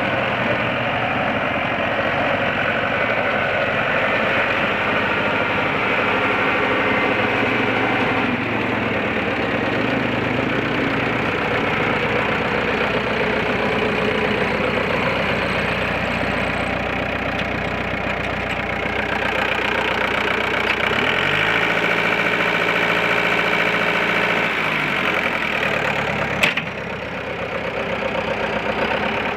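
1997 Bobcat 863 skid steer's diesel engine running steadily. Its pitch shifts a few times, notably between about 21 and 25 seconds in. A single sharp click comes near the end, and the engine sound dips briefly after it.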